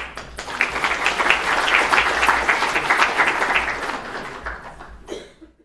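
Audience applauding, building over the first second, then thinning out near the end before cutting off.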